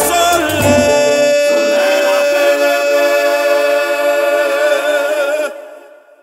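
Haitian vodou song ending: the low accompaniment drops out about a second in, and the singers hold one long final note together, which fades out near the end.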